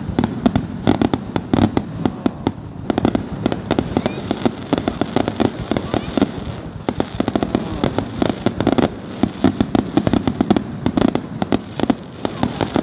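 Fireworks grand finale: a dense barrage of aerial shell bursts, many sharp reports a second, with brief lulls about six and a half seconds in and near the end.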